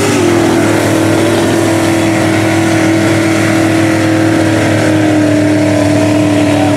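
Mud truck's engine held at high revs under heavy load as it plows through deep mud, the pitch steady and easing slightly lower toward the end.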